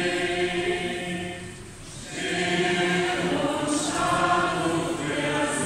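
Small mixed choir of men and women carolers singing unaccompanied, with a short pause between phrases about two seconds in.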